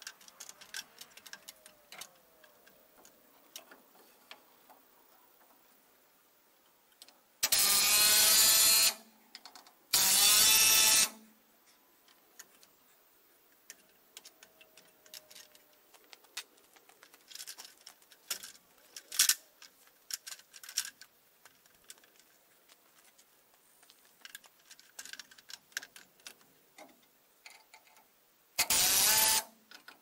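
Cordless drill driving screws into a wooden framing board: two runs of about a second and a half, around eight and ten seconds in, and two shorter runs near the end. Light clicks and knocks of handling come in between.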